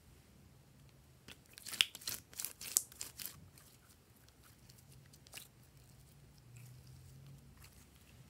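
Glossy slime mixed with sequins being squeezed, stretched and folded by hand: a quick run of sticky crackles and pops from about one to three seconds in, then softer, sparser squishing.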